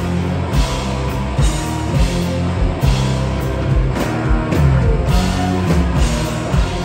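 Live rock band playing: electric guitar over a drum kit, with cymbal hits roughly once a second.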